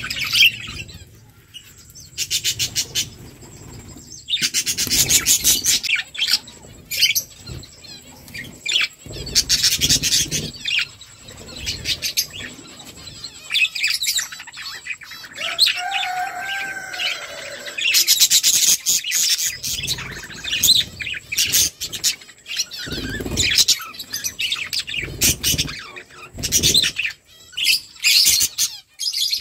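Flock of budgerigars chirping and chattering in rapid bursts, with short quieter gaps between them.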